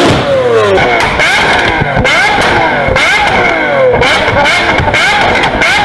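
A high-performance car engine revved up and down repeatedly, its pitch rising and falling about once a second, with a few sharp exhaust pops.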